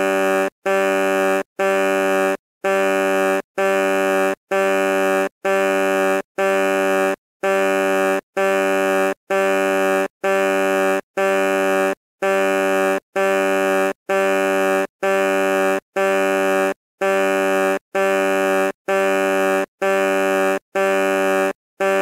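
Truck horn sounding in short repeated honks, a loud, steady buzzy tone of one pitch, each honk just under a second long with brief silent gaps, a little more than one honk a second.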